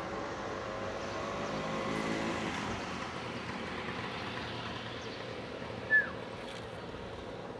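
A car engine running, rising gently in pitch over the first couple of seconds, then a steady background rumble of traffic. About six seconds in there is one short, high chirp.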